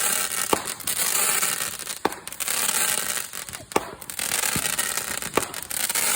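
Consumer fireworks going off: four sharp bangs about a second and a half apart over a continuous crackling hiss.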